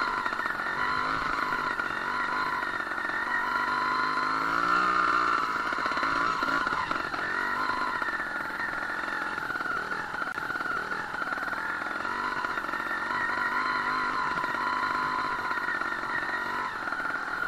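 Sherco 290 trials motorcycle's single-cylinder two-stroke engine running while the bike is ridden along a dirt trail, its pitch rising and falling with the throttle, with a clear rise about four to five seconds in.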